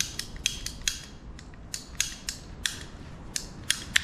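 Hand-held ratcheting pipe cutter clicking as it is squeezed through a plastic water pipe: a series of sharp, irregular clicks.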